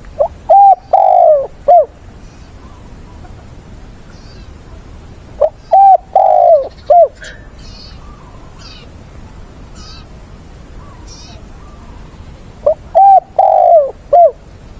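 Spotted dove cooing: three identical phrases about six seconds apart, each a short note, then a longer note, a long falling note and a short closing note.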